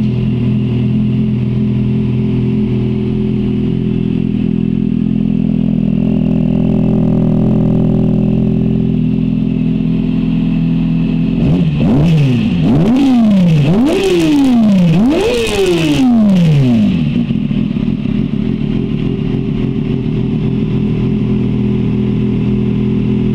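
2007 Kawasaki ZX-6R's inline-four engine idling through a Hard Rock HR1 shorty pocket exhaust. About halfway through the throttle is blipped four times in quick succession, each rev climbing higher and falling straight back, before it settles to idle again.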